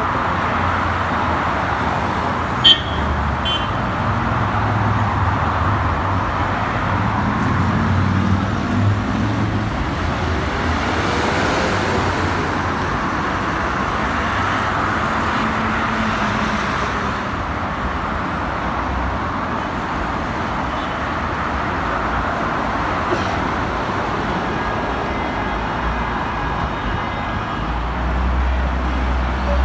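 Street traffic noise: the steady rumble and hiss of passing road vehicles, with one short sharp knock about three seconds in.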